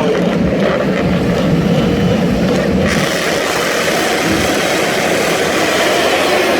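World Superbike racing motorcycles' engines running hard at high revs. About three seconds in, the sound turns brighter and hissier.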